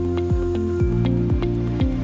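Upbeat electronic background music, with a steady kick drum about twice a second under held synth chords and short high notes.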